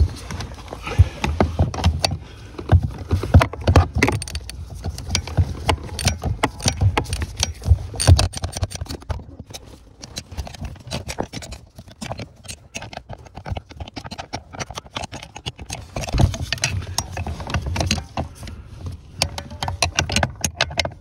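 Irregular clicking, knocking and rattling of hand tools and plastic and metal parts being worked on at the clutch pedal assembly under the dashboard.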